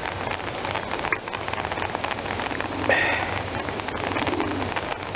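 Very heavy rain falling, dense and steady, with many close drops striking surfaces. A short high chirp is heard about three seconds in.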